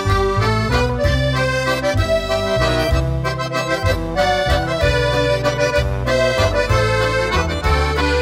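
Background music: an instrumental tune of held melody notes over a bass line that changes every half second or so.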